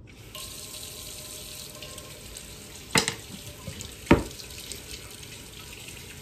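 Hands working sticky fry-bread dough in a glass bowl, with two sharp knocks about three and four seconds in, over a steady hiss that starts just after the beginning.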